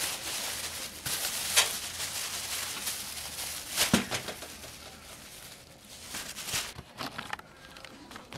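Thin clear plastic bag rustling and crinkling as it is handled, with sharper crackles about a second and a half in and again about four seconds in, quieter near the end.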